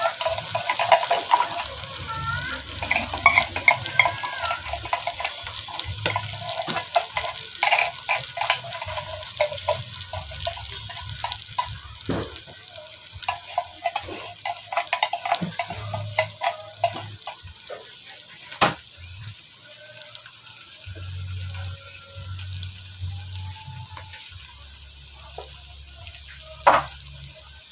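Button mushrooms frying in a pot under freshly poured cream of mushroom soup, a sizzle full of small crackles that is strongest at first and dies down over time. Now and then there is a sharp click.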